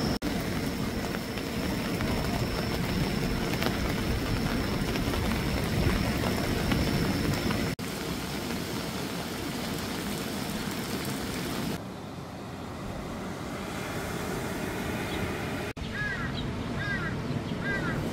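Steady noise of surf breaking on a sandy beach, heard across several cuts. Near the end, birds give short chirping calls that repeat several times.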